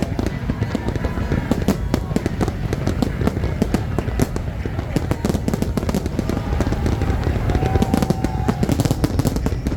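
A fireworks display going off in a dense, irregular barrage of bangs and crackles over a continuous low rumble.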